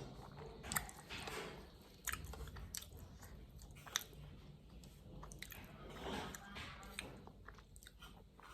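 Close-up eating sounds: a person biting and chewing food, with irregular sharp crunches and soft wet mouth sounds.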